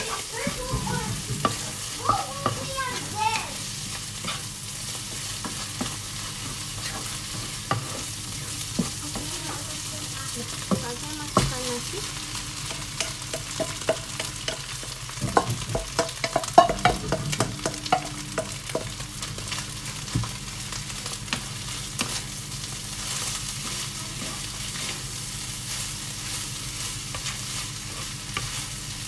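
Nasi goreng stir-frying in a nonstick pan: a steady sizzle under the repeated scrape and knock of a wooden spatula stirring meat, vegetables and chilli paste. About halfway through, cooked rice is tipped in from a metal bowl and stirred through, giving a denser run of knocks and scrapes.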